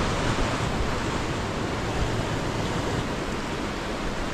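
Steady rush of ocean surf breaking on a beach, with wind buffeting the microphone.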